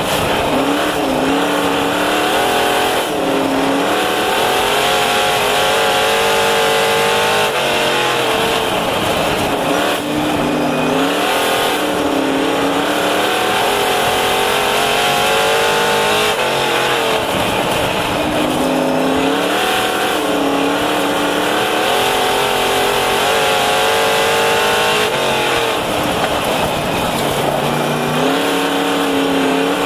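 358 dirt modified's V8 engine at racing speed, heard from inside the cockpit. Its pitch climbs down each straight and drops off every several seconds as the driver lifts for the turns, lap after lap.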